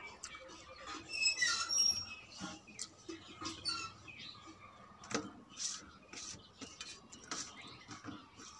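Wet squishing, smacking and clicking of fingers mixing rice into runny palak dal on a steel plate, along with the eater's mouth and chewing sounds. A bird chirps briefly in the background about a second in.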